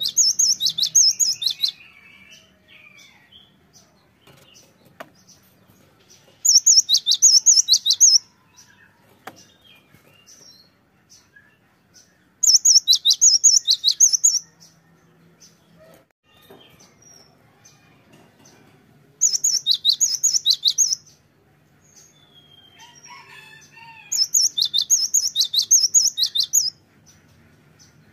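Cinereous tit (gelatik batu) singing in loud bursts of rapid, high, repeated notes, each burst about two seconds long, five times at roughly six-second intervals, with faint softer chirps in between.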